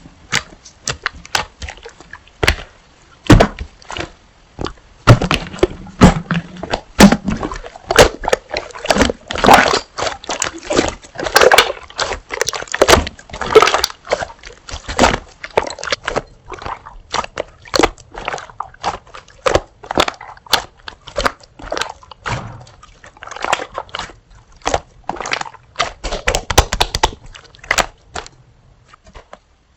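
Slime being squeezed and pressed by hand: a dense run of short wet clicks and squelching pops, busiest in the middle.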